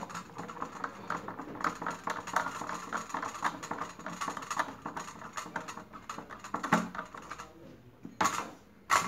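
A screwdriver turning a screw into a sandwich maker's metal plate: a rapid run of small clicks and scrapes, then a few louder clacks near the end.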